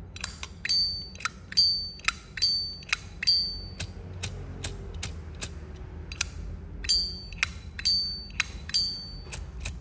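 Zippo lighter lid flicked open and snapped shut again and again: sharp metal clacks, many followed by the lighter's high ringing ping, with a short pause about halfway through.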